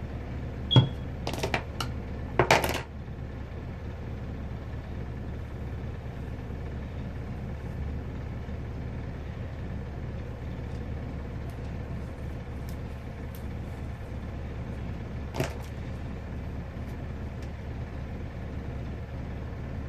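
Small hard objects being handled, clicking and clattering several times near the start and once more in the middle, over a steady low hum.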